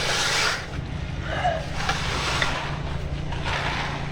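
Construction machinery engine running steadily at a low hum, with swells of rushing noise about once a second.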